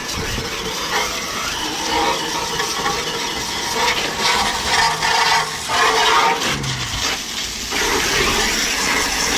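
Garden hose spraying water onto an air conditioner's outdoor condenser coil and compressor, a steady rushing hiss and splatter. The water is there to cool an overheated compressor and condenser fan motor whose windings have opened after a capacitor failure.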